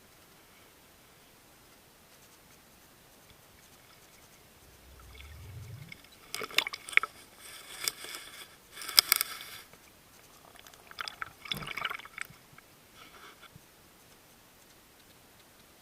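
Water sounds: a low rising rumble about five seconds in, then a run of clicks, scrapes and crackling, splashy noise lasting about six seconds.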